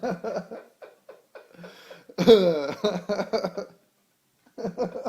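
A man laughing in short choppy bursts, with a loud, high laugh about two seconds in that slides down in pitch.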